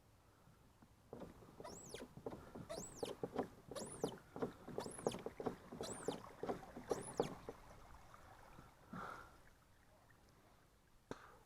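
Pedal-drive kayak underway: a high squeak that rises and falls about once a second, six times, over a busy clatter of knocks and water, stopping about seven and a half seconds in.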